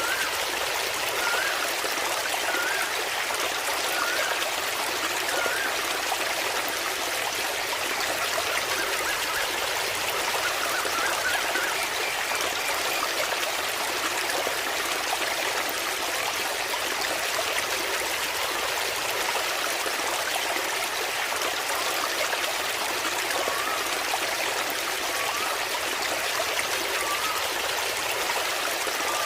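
Waterfall water running and trickling steadily, with faint short chirps repeating about every second and a half in the opening seconds and again near the end.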